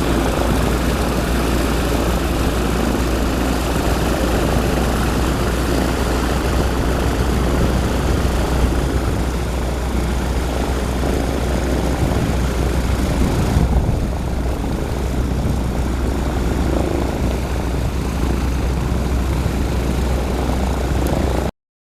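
Propeller aircraft's piston engines running steadily: a loud, dense drone with a strong low hum. The sound cuts off suddenly near the end.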